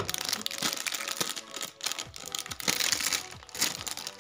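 Clear plastic bag crinkling and rustling as it is handled, with a sharp knock at the very start.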